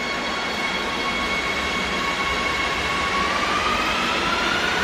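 Madrid Metro electric train pulling out of a station: steady electric motor tones over a low rumble, turning into a rising whine from about three seconds in as it picks up speed.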